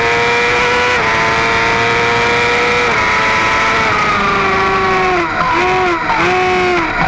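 Middleweight superbike engine heard from a camera on the bike as it is ridden at speed, with wind rush. The engine note holds and creeps up, drops a step about a second in and again about three seconds in, sinks slowly, then dips and recovers quickly a few times near the end.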